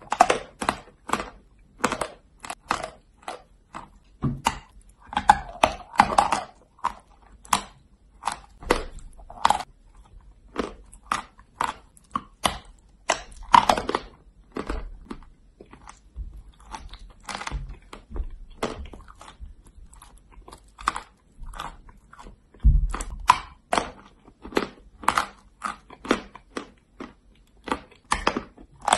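Crunching and chewing of a block of Valuyki chalk coated in wet chalk paste: an irregular run of sharp, crisp crunches, several a second throughout.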